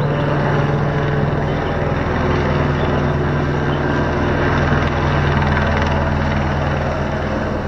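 Helicopter flying overhead, its rotor and engine sound loud and steady throughout.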